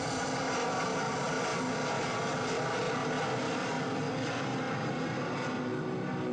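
Steady drone of a propeller aircraft, a sound effect played over a hall's speakers.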